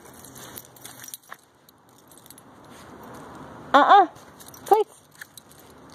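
Faint metallic jingling and rustling from the dog's leash and collar, then two short, loud, high-pitched voiced calls about four seconds in.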